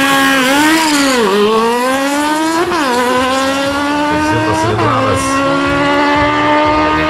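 Sport motorcycle engine revved at the drag-strip start line, then launched and accelerating hard: the pitch climbs through each gear and drops at two upshifts, about three and five seconds in.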